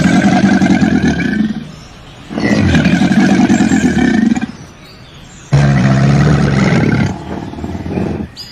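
Crocodile bellowing: three long, deep calls of about two seconds each, a short pause between them.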